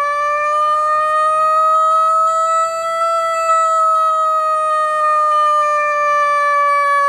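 118K 200-watt electronic siren sounding a slow wail through its speaker: a single tone that climbs gradually for about three seconds, then falls slowly.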